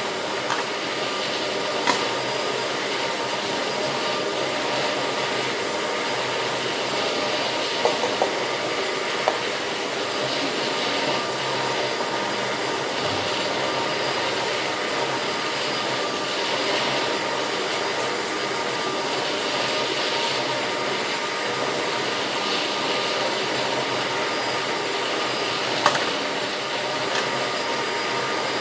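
A steady electric motor or fan whirring without a break, with a few sharp clicks and knocks of packets and containers being handled.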